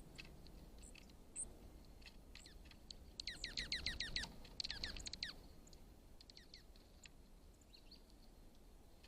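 Small songbird chirping: scattered high single chirps, with a fast run of downward-slurred notes lasting about two seconds, starting about three seconds in.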